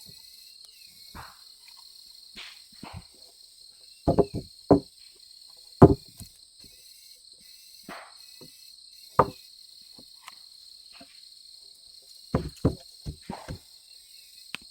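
Scattered knocks and thuds, some in quick clusters about four seconds in and again near the end, over the steady high drone of insects chirring.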